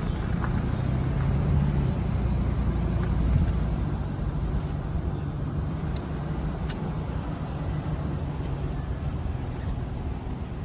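A pickup truck driving along: steady engine hum and road noise, a little louder in the first few seconds.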